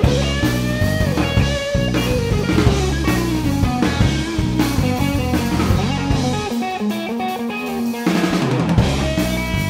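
Blues-rock power trio of electric guitar, bass guitar and drum kit playing together, the full band coming in right at the start. The bass and kick drop out for a moment a little past the middle, then come back in.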